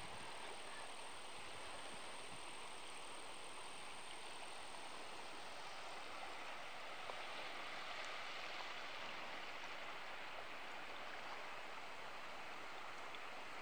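Soft, steady outdoor ambience: an even hiss with no distinct events.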